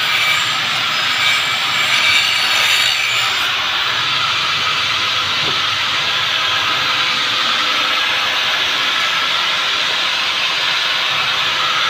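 Electric angle grinder grinding a steel tube frame, a steady harsh grinding hiss. It is brightest for the first few seconds, then settles to a duller, even grind.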